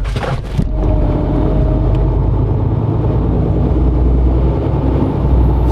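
Diesel engine of a MAN TGX 580 truck, a 15.2-litre straight-six, pulling steadily with a low, even hum. It gets louder about a second in.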